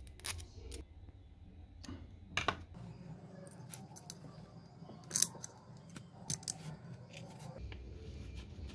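Irregular sharp metallic clicks and taps from a small steel bracket, bolt and screwdriver being handled and fitted against an aluminium chassis frame, the loudest about two and a half and five seconds in.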